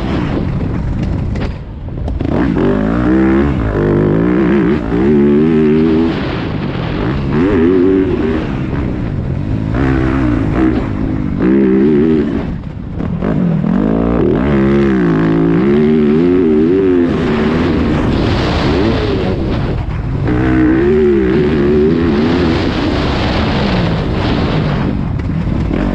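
Yamaha YZ250F four-stroke single-cylinder motocross engine heard from on the bike, revving up and down over and over as the rider accelerates, changes gear and shuts the throttle around the track, with short drops where the throttle is cut.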